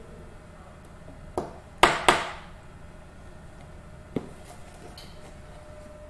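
A few sharp knocks and clinks from handling a plastic tub of cookie dough mixture, the two loudest close together about two seconds in, with a faint steady hum underneath.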